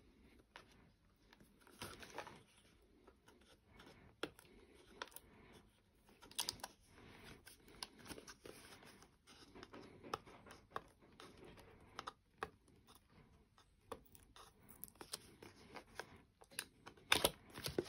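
Cardboard box and paper packaging of a phone case being peeled open and handled by hand: faint scattered rustles, small tearing sounds and light clicks, with a louder flurry near the end.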